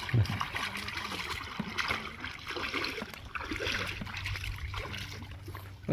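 Water splashing and trickling, with faint voices in the background.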